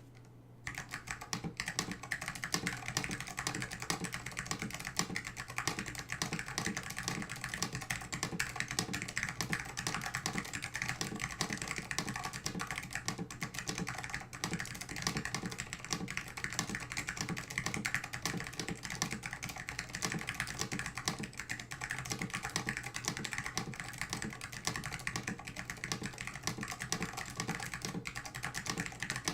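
Continuous fast typing on a mechanical keyboard with SKCM Orange Alps switches, an acrylic plate and case, and AEKII PBT keycaps: a dense run of key clicks starting just under a second in, over a faint steady low hum.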